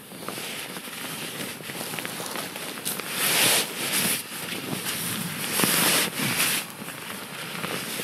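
A military sleep system's sleeping bag and its sack rustling and crinkling as they are handled and squeezed to push the air out, with louder swells about three and six seconds in.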